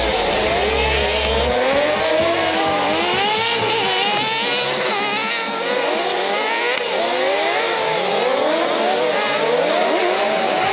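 Several autocross race cars' engines revving and changing pitch as they race, many overlapping at once, with some tyre noise.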